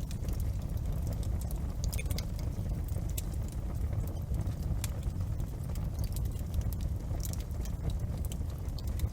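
Wood fire crackling in a fireplace: many small, sharp snaps and pops at an irregular pace over a steady low rumble of the flames.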